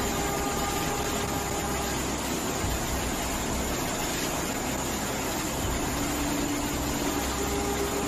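Steady rushing noise of floodwater in a flooded street, with a low rumble underneath.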